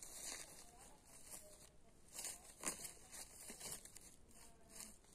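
Footsteps crunching and rustling through dry fallen leaves and grass: a few quiet, irregular steps, with the loudest crunches about two to three seconds in.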